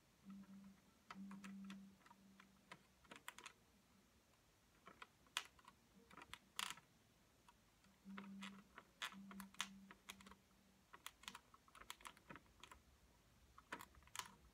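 Faint, irregular clicking of buttons being pressed on a programmable thermostat while someone tries to set the heat, with a few brief low hums near the start and again around the middle.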